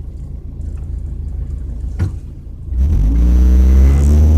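Car engine with an exhaust leak, heard while driving: a steady low rumble at light throttle, a single click about two seconds in, then the engine accelerates hard near the end, its pitch climbing and the exhaust growing much louder.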